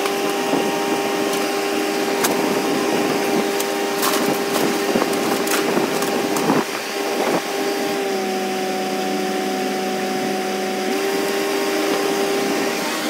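Cat 340 hydraulic excavator running with a steady humming tone, which dips lower for about three seconds past the middle and then comes back. Its demolition grapple cracks and crashes through the wreckage of a brick house, in a cluster of sharp knocks through the middle.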